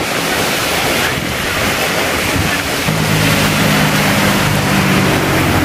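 Heavy rain pouring down in a sudden downpour: a loud, steady hiss of rain on the road. About three seconds in, the low, steady hum of a vehicle passing on the wet road joins it.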